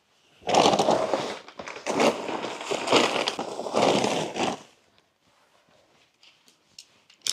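Plastic bags rustling and crinkling, with small knocks of tools, as a pile on the floor is rummaged through by hand; it stops about four and a half seconds in.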